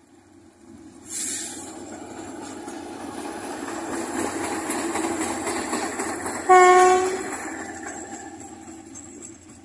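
State Railway of Thailand GE GEK-class diesel-electric locomotive No. 4005 running past at low speed, its engine and wheels on the rails growing louder as it nears, with a brief hiss about a second in. About six and a half seconds in it sounds one short horn blast, the loudest sound, then the noise fades as it moves away.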